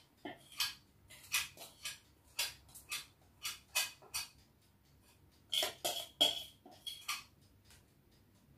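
A kitchen utensil tapping and clinking against a bowl or baking pan in a series of short, irregular knocks, with a brief pause in the middle and a few brighter, ringing clinks after it.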